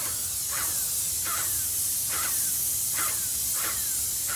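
Airless paint sprayer with a 310 tip spraying paint in a steady hiss, with a faint regular pulse about every three quarters of a second.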